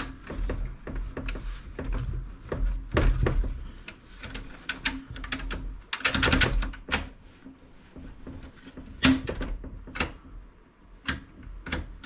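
Irregular clicks, knocks and scrapes of a PC case's plastic and metal parts being worked at and pried to free a catch, with a quick rattle about six seconds in.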